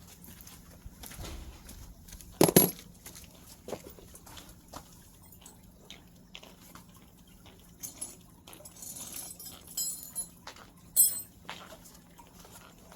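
Scattered knocks and light metallic clinks of parts and tools being handled, with one loud knock about two and a half seconds in and a few sharp clinks near the end; the outboard engine is not running.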